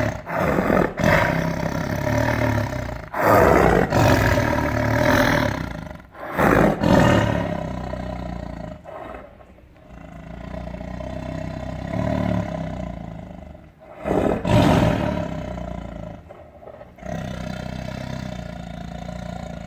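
Tiger roaring and growling: a string of loud roars, several in the first seven seconds and one more about two-thirds of the way through, with long, lower growls between them and near the end.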